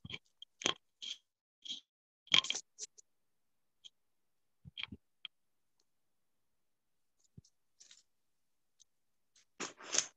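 Scattered short clicks, taps and rustles picked up over a video call, with dead silence between them. The loudest tap comes about two and a half seconds in, and a longer rustle comes near the end.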